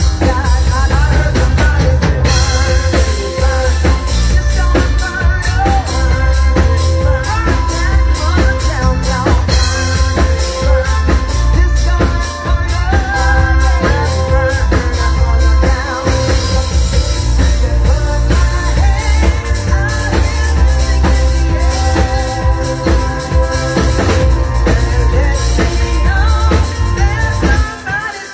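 A live band playing, with a drum kit keeping a steady beat under bass and melodic parts.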